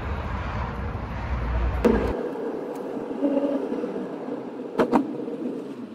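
Steady outdoor rumble and hiss of wind and traffic around an open car park. About two seconds in it cuts to the steady drone of a car's cabin on the move, with two sharp clicks close together near the end.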